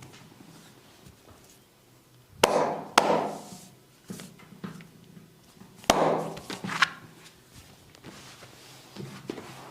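Massage strikes of hands on skin, the loud 'skin cracking' slaps of a barber's massage: four sharp slaps in two pairs, two about two and a half seconds in and two more about six to seven seconds in, with a few lighter taps near the end.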